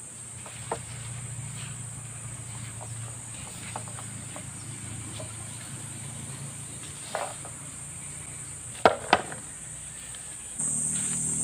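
Steady high-pitched drone of insects, with a few sharp wooden knocks from a long bamboo harvesting pole; the loudest are a pair close together about nine seconds in, as the pole comes down. The insect drone gets suddenly louder near the end.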